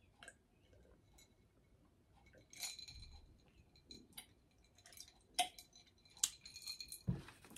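Faint scattered clinks and clicks from a drink cup and utensils, with quiet mouth sounds of eating and drinking horchata, and a soft thump near the end.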